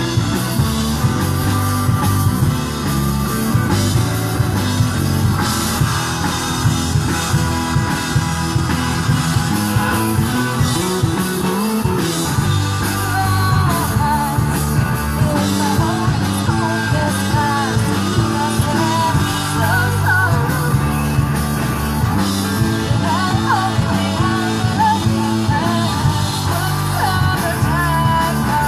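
Live rock band playing during a sound check: electric guitar, bass and drum kit, with a wavering sung or lead melody coming in about halfway through.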